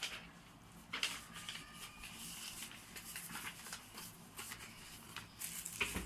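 Handling noise: rustling and light clicks as objects are picked up and moved about, with a louder burst of rustle about a second in and another near the end.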